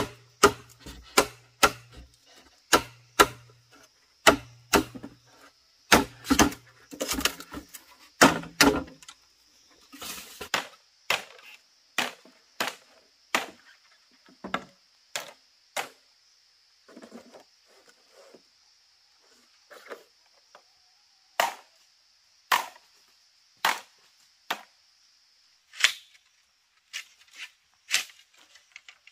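Repeated chopping strikes into wood, about one or two a second at first, then more spaced out and lighter after about nine seconds.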